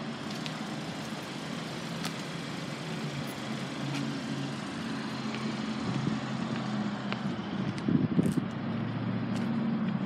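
Steady low rumble of road traffic, with a few small clicks and a brief louder rumble about eight seconds in.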